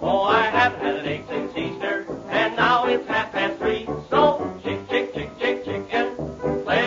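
Background music: a lively tune with a quickly moving, bending melody line over a repeating bass line.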